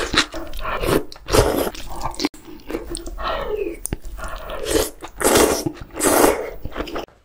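Close-miked eating sounds: chewing and slurping chewy jjolmyeon noodles out of spicy octopus hot pot, with two long slurps near the end.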